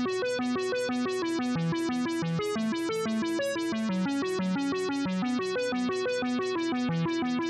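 Background music: a quick, repeating keyboard melody of short plucked-sounding notes, starting suddenly.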